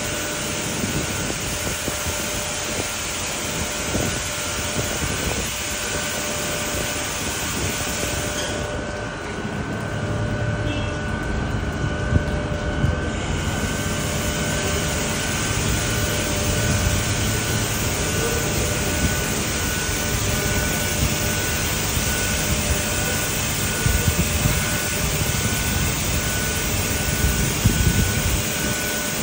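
Ryko Pulse automatic car wash gantry running over a car: steady hiss of water jets with a faint machine whine underneath. For a few seconds about nine seconds in, the hiss softens and a low rumble comes up, and there are a few knocks near the end.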